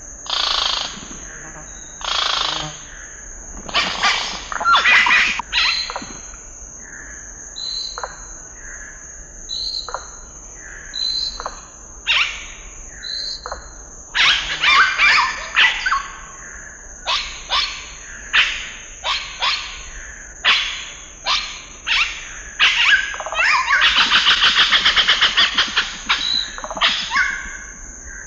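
Scarlet-rumped cacique calling: a string of loud, short, varied calls and clear whistled notes, with a fast rattling run of notes near the end.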